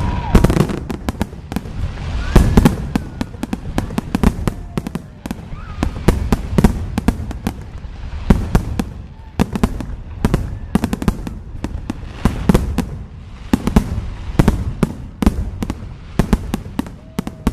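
Fireworks going off in rapid, irregular succession: many sharp bangs and crackles close together, with a few faint whistles.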